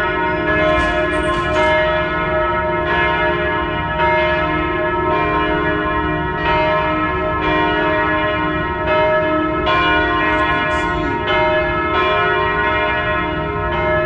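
Church tower bells pealing, a new strike about every second, each one ringing on under the next so that the tones overlap.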